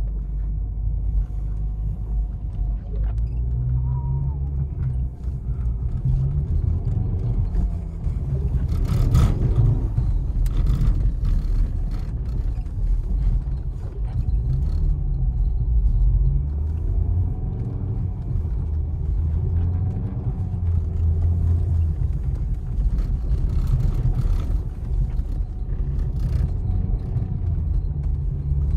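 Mercedes-Benz 200TE (S124) estate's four-cylinder petrol engine, heard from inside the cabin, its revs rising and falling again and again as the car slides on a snowy road, over a heavy rumble from the tyres and road. A sharp knock about nine seconds in.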